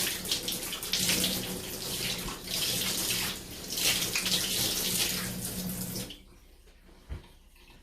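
Tap water running into a sink as hands are washed under it, the splashing rising and falling as the hands move through the stream. The water stops abruptly about six seconds in, followed a second later by a single dull thump.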